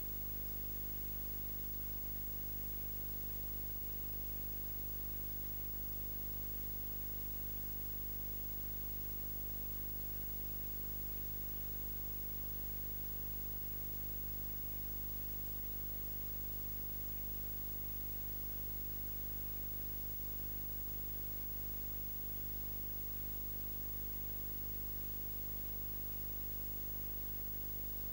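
Steady electrical hum and hiss from a camcorder recording with its microphone unplugged, carrying no sound from the scene. The hum is a low buzz made of many evenly spaced tones, with an even hiss over it.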